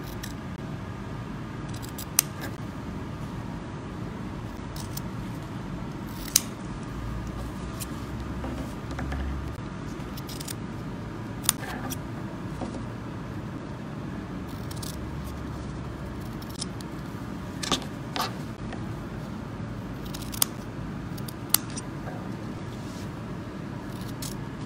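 Fabric scissors cutting through folded cotton lining fabric: a handful of sharp snips of the blades, several seconds apart, over a steady low hum.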